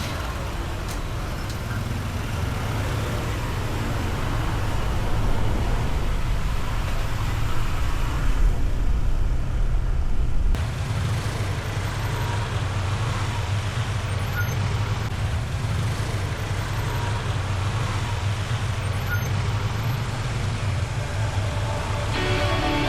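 Road and wind noise from riding a Honda ADV 160 scooter in traffic: a steady low rushing. About ten seconds in it changes abruptly.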